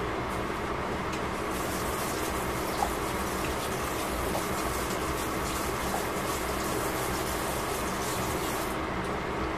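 A pot of beef and vegetables simmering under a glass lid: a steady bubbling hiss that grows brighter about a second and a half in and drops back near the end, over a steady low hum.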